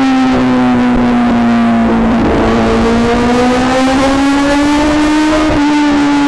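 Kawasaki motorcycle engine running under load in a tunnel. Its pitch sags slightly over the first couple of seconds, then climbs again, with brief changes in throttle about two and five and a half seconds in.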